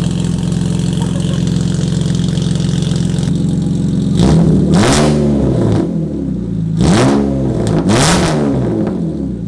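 BMW E36 328i's M52 inline-six idling steadily through a straight-pipe exhaust with a single 18-inch glass pack, then revved up and let fall back in two short bursts about four and seven seconds in. It is loud, and the glass pack improves the sound only somewhat.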